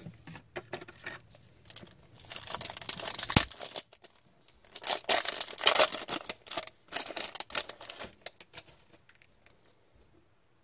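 A trading-card pack wrapper torn open and crinkled in two long bursts, then cards handled with short rustles and flicks that die away near the end.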